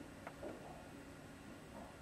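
Quiet room tone with a faint click about a quarter second in and a couple of brief soft rustles.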